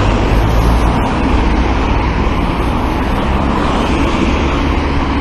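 Steady road traffic noise with a heavy, continuous low rumble and no distinct passing events.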